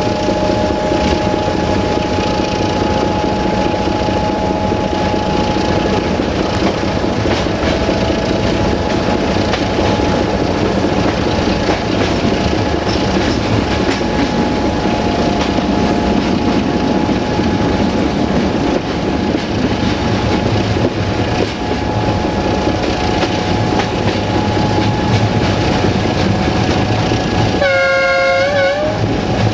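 A train running on the track with steady, loud running noise. Near the end comes one short horn blast of about a second and a half, its pitch wavering.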